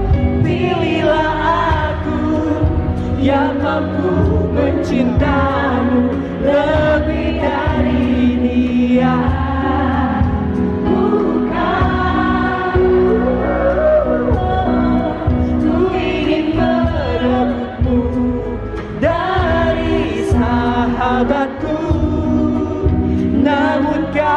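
Live concert performance: a female singer sings into a microphone over the band, with many voices of the audience singing along.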